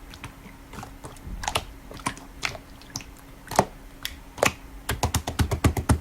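Slime being played with, making irregular sticky clicks and pops that quicken into a rapid run of clicks near the end.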